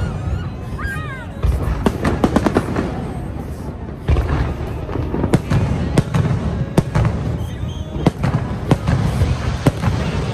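Aerial fireworks bursting: a fast, irregular series of sharp bangs and crackles over a steady low rumble.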